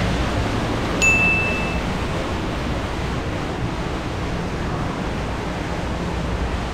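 Steady rushing background noise in a large indoor market hall. A single bright bell-like ding about a second in rings out for under a second.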